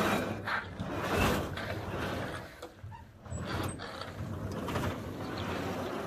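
Movable partition wall panel being pulled along its track, a rough sliding, rolling scrape that comes in uneven surges, with a knock about a second in. The panels have a lot of drag, which makes them hard to pull out.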